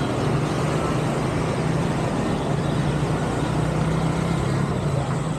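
Steady city street noise with a continuous low engine-like hum, typical of motor traffic.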